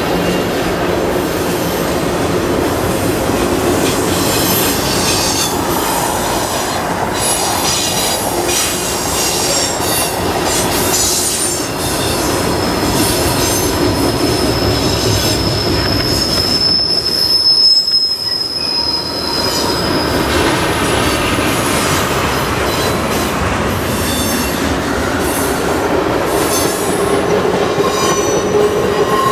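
Freight train of tank cars and autorack cars rolling past close by: steel wheels rumbling and clattering on the rails. A steady high-pitched wheel squeal sets in about 12 seconds in and stops about 20 seconds in.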